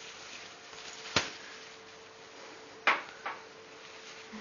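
Thin plastic carrier bag crackling in short, sharp bursts as a cat inside it shifts and pushes against it: once about a second in, then twice close together near the end, over a faint steady hum.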